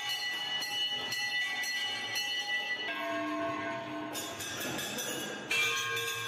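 Hanging brass temple bells rung by hand, several bells of different pitches struck again and again so that their rings overlap. A louder set of strikes comes in near the end.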